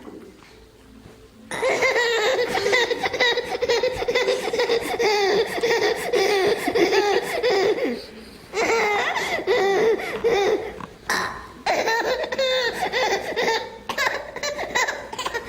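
A baby laughing hard in long, high-pitched runs of belly laughs, set off by fake burping. The laughter starts about a second and a half in and breaks off briefly twice.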